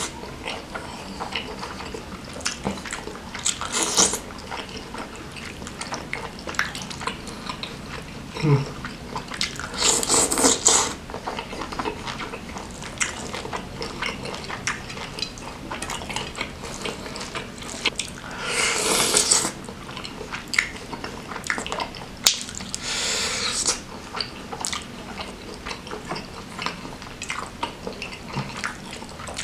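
Close-miked hand-eating sounds: fingers squishing and scooping rice soaked in gulai curry against a ceramic plate, with wet chewing and small clicks. A handful of louder wet squelches about a second long come every few seconds.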